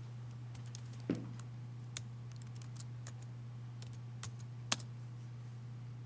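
Scattered clicks and taps from hands handling the recording setup close to the microphone, loudest about a second in, which also has a short low knock, and just before five seconds, over a steady low electrical hum.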